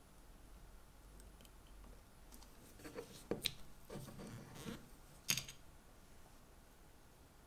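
A few small, sharp clicks and a brief soft rustle of a metal watch case and its parts being handled with fingers in rubber finger cots. The loudest click comes about two-thirds of the way through.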